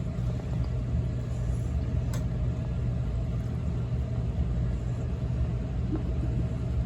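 Steady low hum and rumble of a running gas furnace.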